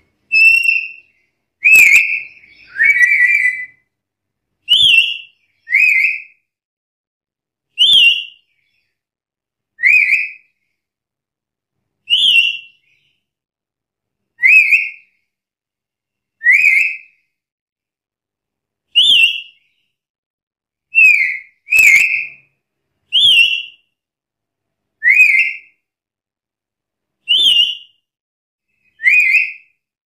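Black-capped lory calling: a series of short, loud, whistled notes, each a quick upward slur, repeated every second or two.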